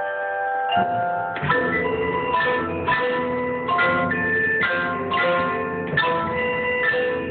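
Indoor percussion ensemble playing, recorded on a phone: marimbas, vibraphones and other mallet keyboards ring out a melody, and heavier drum hits join about a second in, marking a steady accented pulse.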